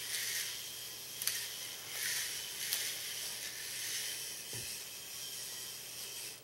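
Small electric K'nex motor running and driving the robot through its plastic gears: a steady hissy whirr with a few sharp clicks, cutting off near the end.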